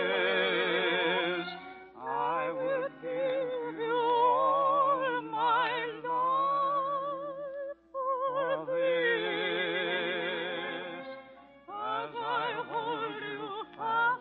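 Operatic soprano singing long held notes with a wide vibrato over musical accompaniment, with short breaks between phrases about two and eight seconds in.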